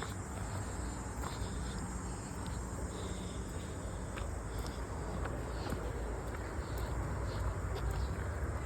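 Insects chirping in short, irregular bursts, high-pitched, over a steady low rumble.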